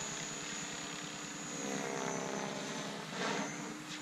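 Electric RC helicopter (Diabolo 550, X-Nova 4020 brushless motor, 557 mm main and 85 mm tail blades) in flight overhead: the steady whine of its spinning rotors and motor, with a high thin tone that fades out about halfway through. A brief louder rush comes about three seconds in.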